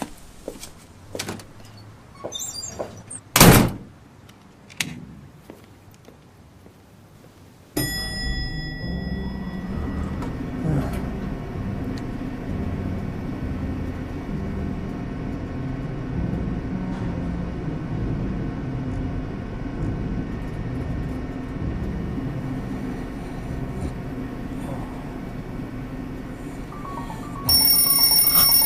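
A few light knocks and a sharp thud about three and a half seconds in, then steady background music from about eight seconds. Near the end a bell starts ringing, loud and high.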